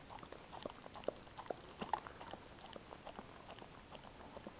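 A golden retriever licking at peanut butter stuck on her nose: faint, irregular tongue smacks and clicks, several a second.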